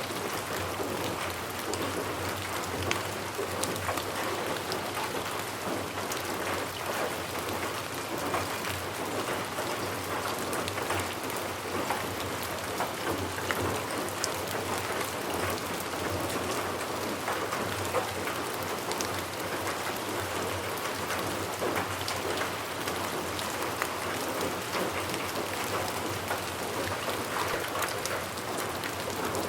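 Steady rainfall, a continuous patter of drops landing on surfaces.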